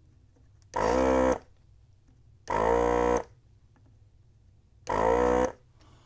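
Three loud buzzer tones, each just under a second long, about two seconds apart.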